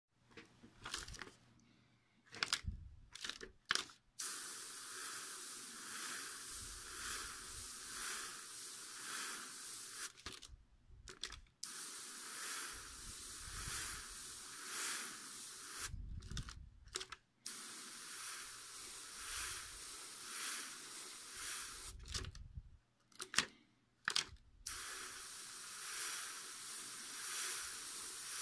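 Airbrush spraying: a steady hiss of air and paint in four long bursts, with short rustles of a paper stencil being handled in the pauses between them.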